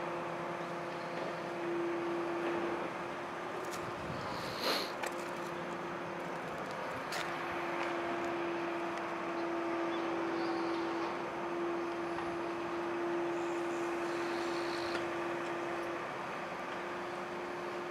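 Steady background hum with a constant droning tone, broken by a couple of brief clicks about five and seven seconds in.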